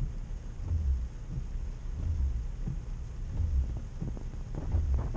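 Car windshield wipers sweeping a rain-covered windshield, a low thump about every 0.7 s over a steady hum inside the car.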